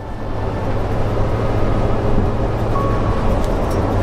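Steady road and engine noise inside a moving vehicle, a low hum under even road rumble.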